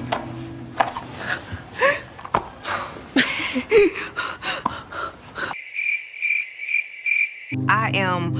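Crickets chirping, a comedy-edit sound effect: a pulsing high chirp, several times a second, for about two seconds over otherwise dead silence. Before it come a few sharp knocks and short exclaiming vocal sounds, and music starts near the end.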